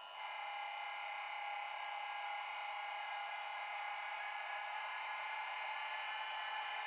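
H0 model-railway sound decoder playing a DB class 120 electric locomotive's running sound: a steady electric whine made of several tones. It steps up in level just after the start.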